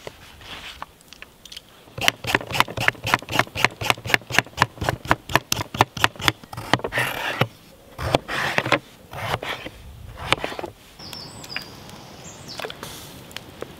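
Potato being peeled with a handheld vegetable peeler: quick, rhythmic scraping strokes, about five a second, for several seconds, then a few slower separate strokes.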